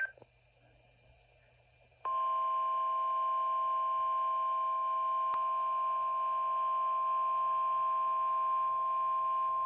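Emergency Alert System attention tone for a winter storm warning: a steady, unbroken electronic alert tone that comes on suddenly about two seconds in, after a short stretch of near silence.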